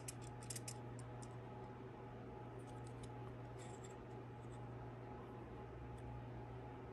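Faint clicks of a digital caliper's steel jaws being closed on and shifted around a chainsaw piston. There is a sharp click right at the start and a few small ones about half a second in and around three seconds in, over a steady low hum.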